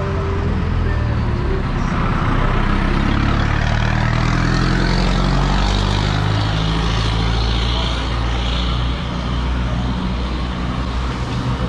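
Street traffic close by: a motor vehicle's engine running, a little louder a few seconds in and easing off after about eight seconds.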